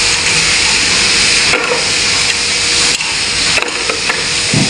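Steady loud hissing noise, with a few short metallic clicks about one and a half, three and three and a half seconds in as a ring spanner works the rocker-arm nuts of a diesel cylinder head.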